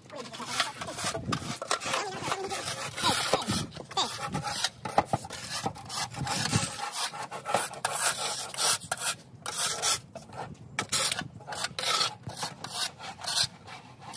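Snow shovel blades scraping across concrete pavement, pushing off a thin layer of snow in many short strokes at an uneven pace.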